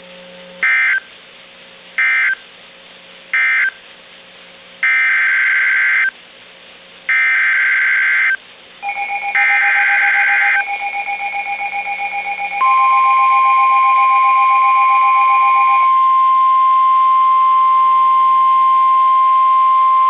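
NOAA Weather Radio SAME data bursts: three short end-of-message bursts, then three longer header bursts announcing the next severe thunderstorm warning. They are followed by the steady 1050 Hz warning alarm tone, which starts about 12 seconds in. A second, rapidly pulsing alarm tone sounds with them from about 9 to 16 seconds.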